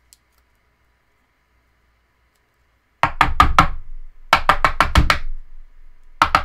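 Three quick bursts of rapid knocking, about seven or eight knocks a second, starting about three seconds in after near silence.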